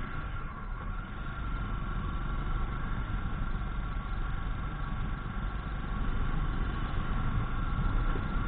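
Motorcycle engine running steadily while the bike is ridden at road speed, with a low rumble.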